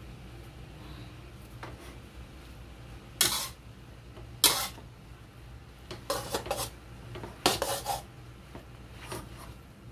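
Metal spatula scraping and knocking against a wok while tossing stir-fried rice vermicelli. A series of short, irregular scrapes begins about three seconds in.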